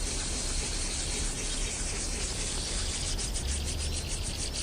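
Coarse 100-grit sandpaper rasping steadily across a plastic headlight lens to cut through heavy oxidation. About three seconds in, crickets start chirping in rapid pulses.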